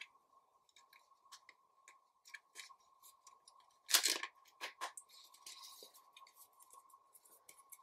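Trading cards handled by hand: light clicks and brief brushing as cards slide against each other, with a louder brushing slide about four seconds in.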